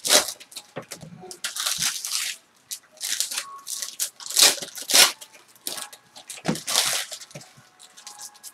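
Foil trading-card pack wrappers being torn open and handled: crinkling and tearing foil in irregular bursts.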